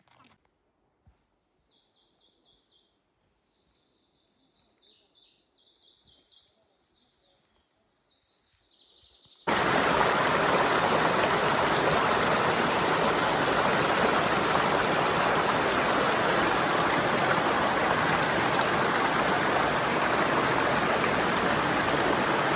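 Faint bird chirps for the first several seconds. About nine seconds in, a loud, steady rush of flowing water, a mountain stream or waterfall, starts abruptly.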